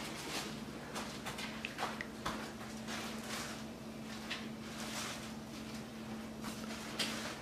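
Faint room sound: scattered soft rustles and clicks over a steady low hum.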